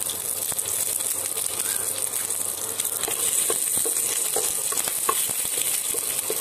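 Curry leaves, mustard seeds, chana and urad dal and dried red chillies sizzling in hot oil in a nonstick pan, with scattered small pops, as a wooden spatula stirs them.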